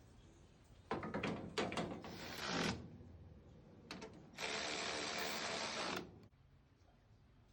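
Tool work on a diesel engine: a run of metallic clicks and knocks, then a power tool running steadily for about a second and a half before cutting off.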